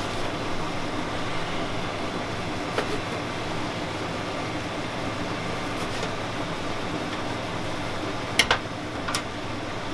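Beef frying in a pan, a steady sizzle, with a few sharp clicks of a utensil against the pan near the end.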